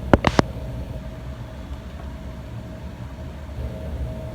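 Three quick sharp clicks right at the start, then a steady low hum with a faint steady tone above it.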